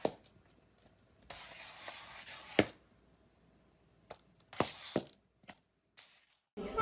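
A few sharp knocks and thuds in a small room, with a stretch of rustling noise in between; the loudest knock comes about two and a half seconds in.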